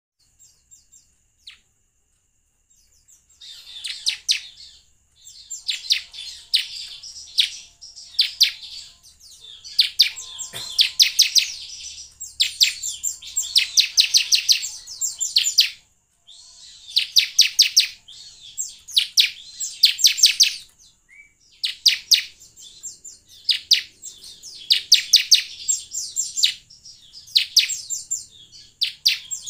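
Bar-winged prinia (ciblek) singing: rapid rattling trills of sharp, high notes in phrases of about a second, repeated with short pauses, starting a few seconds in.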